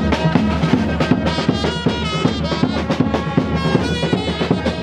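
A fanfare band playing: drums beating steadily under horn-like held notes that step from pitch to pitch.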